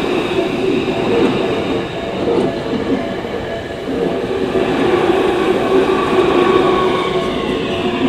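Tokyu Toyoko Line electric commuter train running past close by, its wheels rumbling on the rails, with a steady hum and a falling whine near the end.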